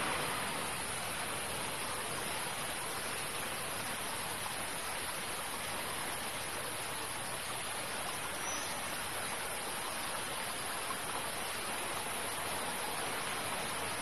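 Steady, even hiss of outdoor background noise with a constant high, thin drone on top; no distinct bird calls.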